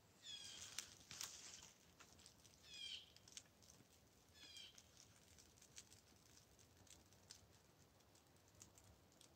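Ferro rod struck with a scraper to throw sparks into a tinder bundle: a few squeaky, screechy scrapes in the first five seconds, then quieter clicks and ticks.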